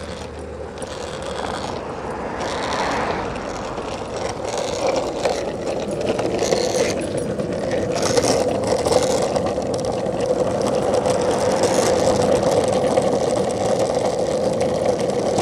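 Wheels rolling fast over asphalt with wind rushing past the microphone: a steady hum with scattered clicks and rattles, growing louder as the speed builds.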